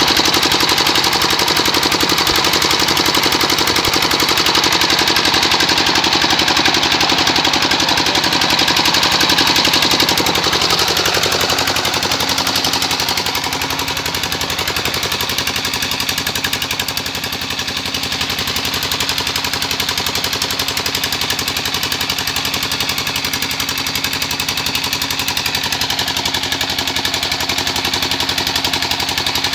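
A 25 hp Petter-type ('Peter') diesel engine running steadily at working speed, its firing strokes a fast, even pounding, with the flat drive belt and line shaft of a flour mill turning under load.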